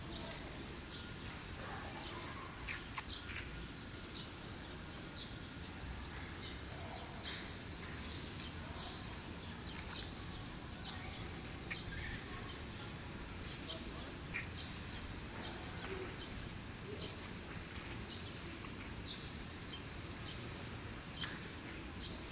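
Small birds chirping in short, repeated high notes over a steady background hum.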